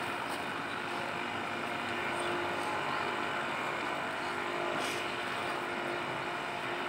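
Steady outdoor background noise with a faint hum and no voices or music: the ambience of an assembled ceremony standing in a moment of silence.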